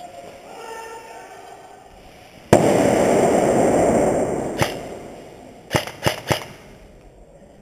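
Airsoft grenade going off with a sudden bang and about two seconds of loud rushing noise that fades out. Then four sharp snaps of airsoft shots, three of them in quick succession near the end.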